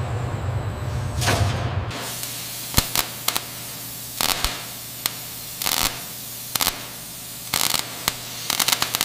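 Low machinery rumble with a brief whoosh, then from about two seconds a steady electric hum and hiss broken by irregular crackling, spitting bursts from a robotic torch throwing sparks onto metal.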